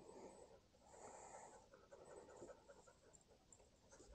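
Near silence, with only faint, soft scattered noises.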